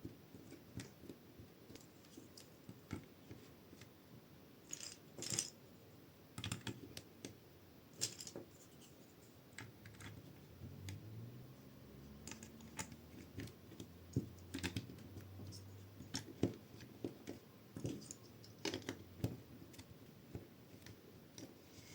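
Plastic LEGO bricks clicking and clattering as they are handled and pressed together, in irregular sharp clicks that now and then come in small clusters.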